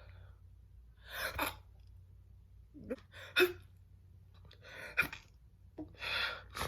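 A woman's held-back sneezes: short, breathy gasps and stifled sneezes, four in quick succession about one and a half to two seconds apart, some ending in a sharp catch.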